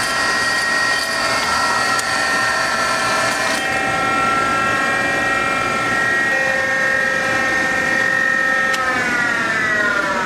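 Gallmeyer & Livingston No. 25 hydraulic surface grinder running under power: a steady, loud motor whine with several pitches over a rushing hum. About nine seconds in, the whine starts to fall in pitch as the machine winds down.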